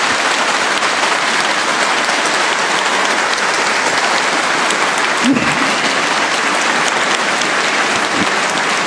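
Audience applauding, a sustained, even run of clapping.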